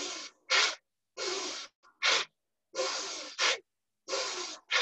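A woman doing forceful thoracic breathing through the nose, in the style of Kapalabhati: a longer drawn breath followed by a short, sharp, forceful exhalation, about four times in an even rhythm.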